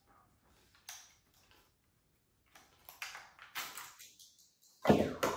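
Handling noise from a Milwaukee Fuel 2904-22 cordless drill and its battery pack: a few light plastic clicks and knocks, then a louder thump near the end.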